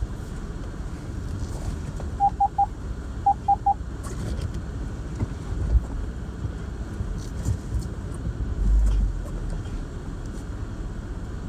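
Land Rover LR4 crawling slowly over rocks, heard from inside the cabin as a low rumble with a few dull knocks. An electronic beep sounds three times, then three times again, about two to four seconds in.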